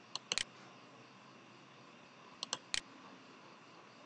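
Computer mouse button clicks: two just after the start and three more about two and a half seconds in, over a steady low hiss.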